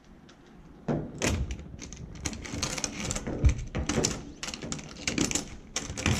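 Irregular clicks and light knocks of steel cable being worked into small metal pulleys and a cable clamp on a metal bracket, beginning about a second in after a near-quiet start.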